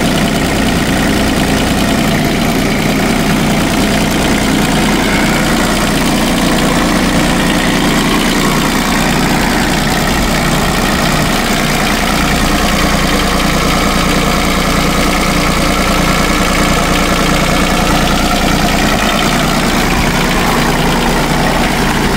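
Ford New Holland TC18 tractor's three-cylinder diesel engine idling steadily. It keeps running with the key out and the battery disconnected, refusing to shut off.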